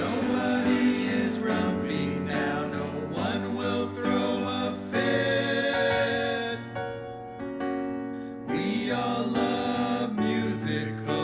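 Music: a piano-backed musical number with wordless, choir-like singing, easing into a softer passage midway before filling out again.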